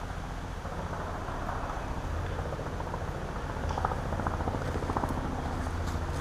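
Footsteps through dry leaf litter over a steady low rumble.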